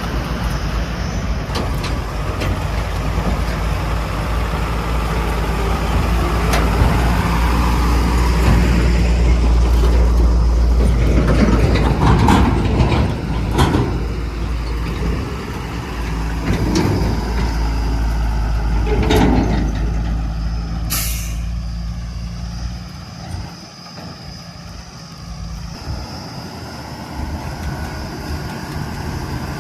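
Heavy diesel engines running steadily, with clanks and knocks in the middle. A short hiss of air comes about twenty seconds in, typical of a truck's air brakes, and the engine noise drops soon after.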